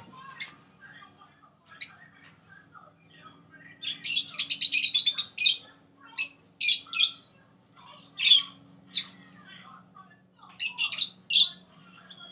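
Small pet parrots squawking and chirping: a rapid burst of chatter about four seconds in, then a string of short, sharp single squawks.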